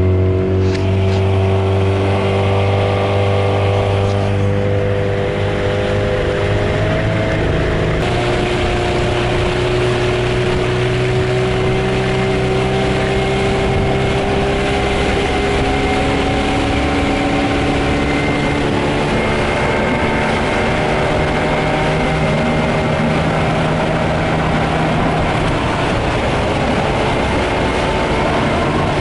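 Suzuki 9.9 outboard motor on a Kazanka-1 aluminium boat running under way, its pitch climbing over the first several seconds as the boat picks up speed and then holding steady. The hiss of the wake rushing along the hull runs under it.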